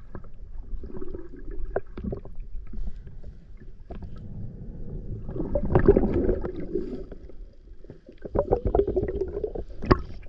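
Muffled underwater sounds of gurgling and sloshing water with scattered knocks and scrapes, swelling loudest about six seconds in.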